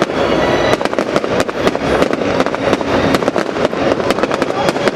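Fireworks display: a dense, continuous run of crackles and bangs from many shells and effects bursting in quick succession.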